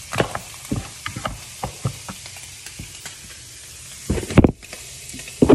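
Shrimp frying in butter in a pan: a steady sizzle with frequent crackles and pops. About four seconds in, a loud cluster of dull knocks, and another knock near the end.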